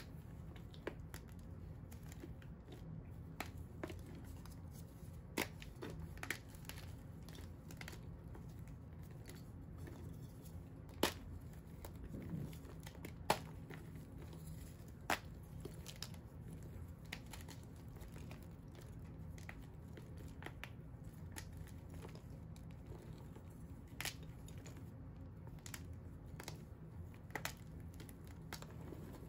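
Fingers crushing and crumbling pieces of dyed-and-dried pink blocks into powder: a soft continuous crunching and crumbling, broken by scattered sharp snaps as chunks break, a few of them louder.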